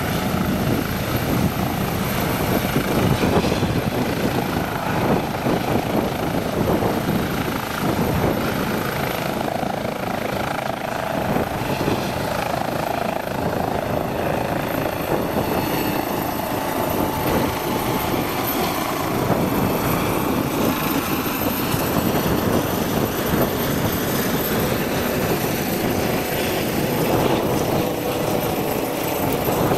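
Eurocopter EC135 helicopter's twin turbines and main rotor running at take-off power as it lifts off and climbs away, a steady dense rotor chop at an even level.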